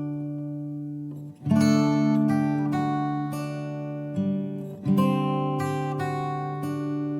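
Background music: acoustic guitar strumming chords that ring out and fade, with a fresh strum about a second and a half in and two more near the two-thirds mark.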